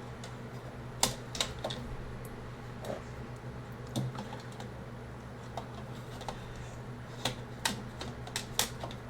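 Light, irregular clicks and taps of small plastic and metal parts of a mini PC being handled and fitted back together, in a few small clusters, over a steady low hum.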